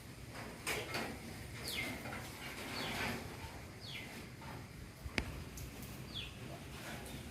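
Short falling bird chirps, roughly one a second, over a steady hiss of rain. A single sharp click sounds about five seconds in.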